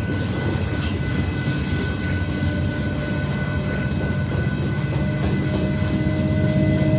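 Diesel freight locomotives working under power as the train departs, a low engine rumble that grows louder from about five seconds in, with a thin steady high whine over it.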